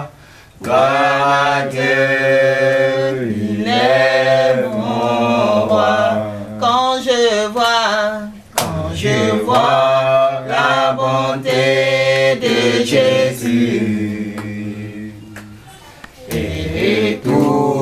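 A group of voices singing a French worship song of praise, with long held notes over a steady low tone. The singing breaks off briefly about half a second in, near the middle and near the end.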